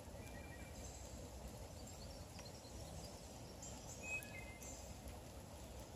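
Quiet woodland ambience: a steady low rumble with a few faint, brief bird chirps scattered through it, the clearest about four seconds in.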